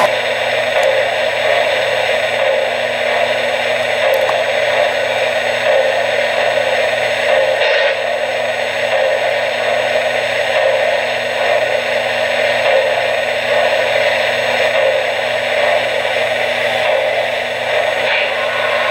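Steady whirring hiss with a low electrical hum from an O-gauge model steam locomotive standing with its smoke unit running.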